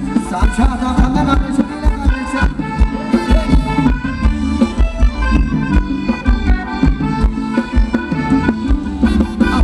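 Thai ramwong dance band music: a steady, driving drum beat under a sustained reedy melody.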